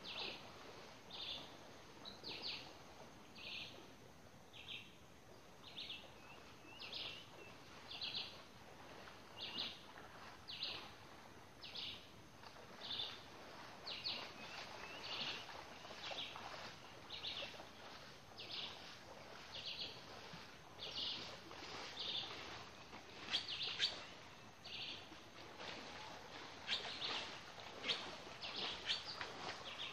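A bird calling over and over, a short high note repeated roughly once a second, with faint scattered taps or rustles in the second half.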